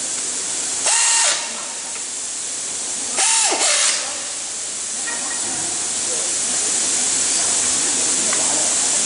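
Pneumatic impact wrench running in two short bursts on the nuts of a truck axle's wheel hub, about a second in and about three seconds in, each with a whine that rises and falls, over a steady hiss.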